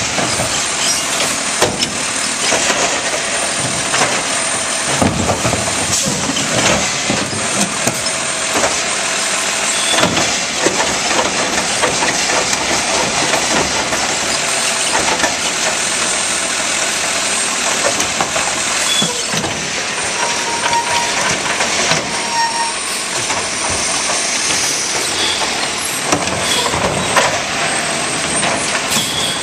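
Labrie automated side-loader garbage truck running, its hydraulic arm lifting and emptying a wheeled trash cart into the hopper, with repeated knocks and clatter from the cart and the arm.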